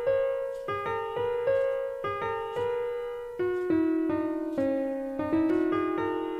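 Background piano music: a slow melody of single notes, each struck and fading.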